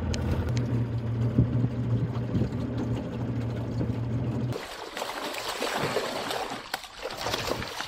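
A boat motor idling with a steady low hum. About four and a half seconds in this cuts off and gives way to water splashing and streaming off a hoop net as it is hauled out of the river.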